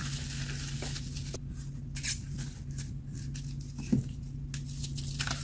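A dry, chalky block and its crumbs being crushed and crumbled by hand, giving scattered small crackles with a couple of sharper snaps about two and four seconds in. A steady low hum runs underneath.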